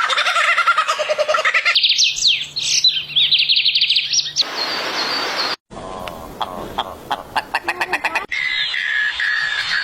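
A rapid series of different birds' chirps, trills and songs, cut together one after another, the kind of call changing abruptly every one to three seconds.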